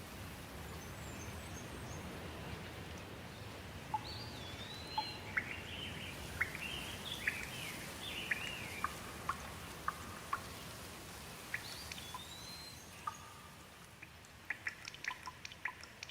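Steady hiss of rain with a bird singing short whistled, gliding phrases over it. About two-thirds of the way in the hiss eases, and near the end a quick run of sharp ticks sets in.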